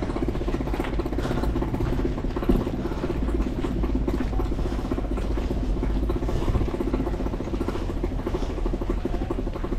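Wheels of a boat launching trolley rolling over concrete, a steady rattling rumble, with the loaded inflatable boat and its gear jostling on the frame as it is pushed along.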